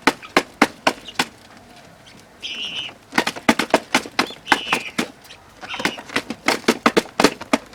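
Guinea fowl pecking feed and broken rice off a hard surface: irregular sharp taps, several a second, with three short higher-pitched calls between them.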